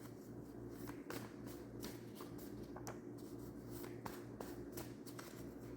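Tarot cards being shuffled by hand: a soft, irregular run of card flicks and clicks over a steady low hum.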